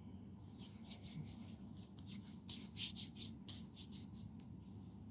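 Hands rubbing lotion into the skin: a faint, quick swishing of palm over the back of the hand, about four strokes a second, loudest around halfway through.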